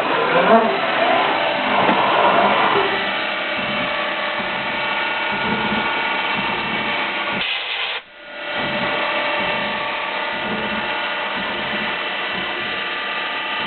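Fadal CNC mill running, a steady mechanical whine made of several fixed tones over a faint pulsing low rumble. About eight seconds in it briefly drops away, then comes back.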